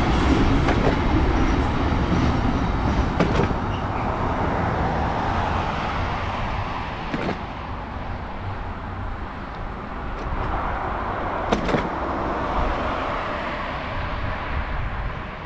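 A freight train runs past on the track alongside; its rumble is loudest at first and fades over the first several seconds. A car then drives by on the road next to it, its noise swelling and falling about two-thirds of the way through, with a few sharp clicks along the way.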